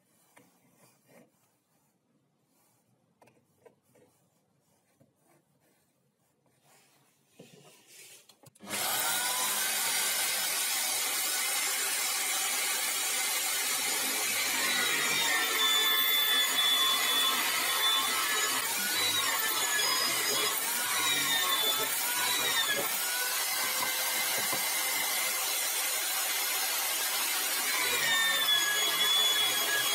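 Faint scratching, then about nine seconds in an electric drill mounted in a drill stand starts running loudly with a bit cutting into a pine block fed by hand; its pitch dips and recovers again and again as the bit bites into the wood.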